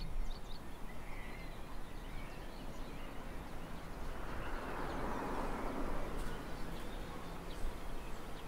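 Outdoor ambience: a steady low hum of background noise with a few faint bird chirps, and a soft swell of noise in the middle.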